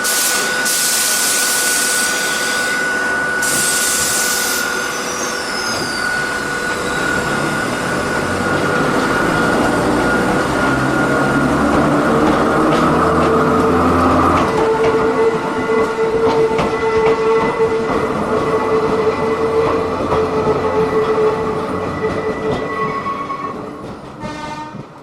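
Sound-effect recording of an electric railcar running: a steady running drone with held high tones, two short hisses of air in the first few seconds, and a fade-out at the end.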